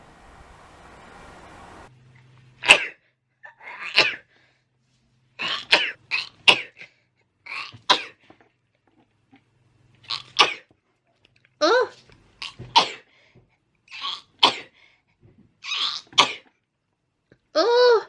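A person sneezing over and over in a fit: about fifteen short, sharp sneezes, often two in quick succession, some with a voiced 'achoo'.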